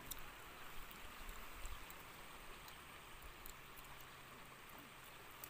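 Faint outdoor ambience: a low steady hiss with scattered small ticks, and a faint low hum coming in about halfway through.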